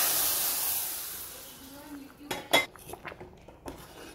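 Hot ghee and roasted vermicelli hissing as they hit the milk, the hiss fading away over about two seconds. Then a steel ladle knocks and clinks against the steel pot a few times as the mixture is stirred.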